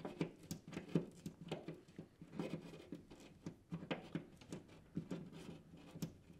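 Thermostat wire being pushed up inside a wall cavity, scraping and ticking against the drywall and the edge of the hole. Faint, irregular small clicks and rustles, several a second.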